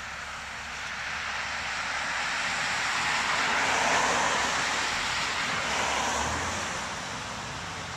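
A car driving past on the street, its tyre and engine noise swelling to a peak around the middle and fading away, over the steady low running of the garbage truck's diesel engine.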